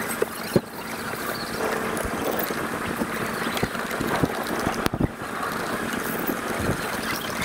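Steady rushing outdoor noise, wind on the microphone, with scattered light taps and two sharper knocks, about half a second in and about five seconds in, from hand work on a board on the boat roof.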